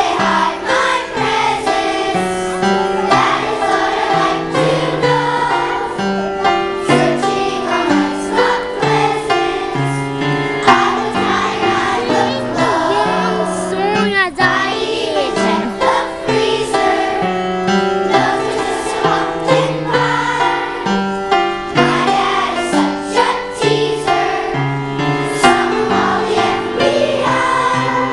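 Children's choir singing a song together over instrumental accompaniment with a stepping bass line.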